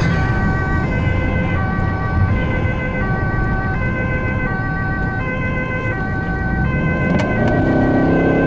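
Ambulance two-tone siren alternating steadily between a high and a low note, over the vehicle's engine and road rumble. Music comes in near the end.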